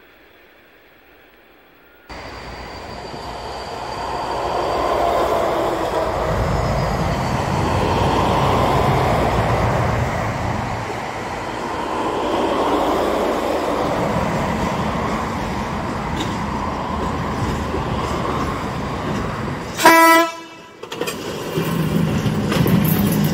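Freight train passing on the rails, a heavy rumbling that starts suddenly about two seconds in and builds over several seconds. Near the end a locomotive horn gives one short loud blast, followed by a steadier droning tone.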